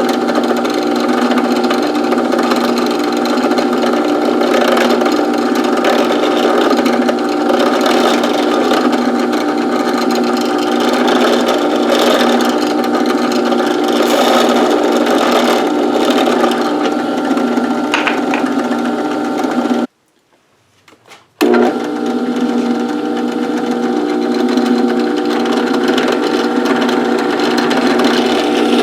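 Drill press motor running steadily with a constant hum while drilling a small 1/16 inch pilot hole. It cuts out for about a second and a half about two-thirds of the way through, then resumes.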